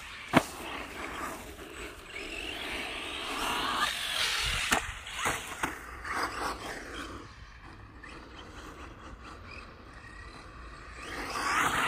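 Radio-controlled car's electric motor whining up and down in pitch as it accelerates and slows on dirt, with sharp knocks of the car landing or hitting the ground, the loudest about half a second in and a few more around the middle.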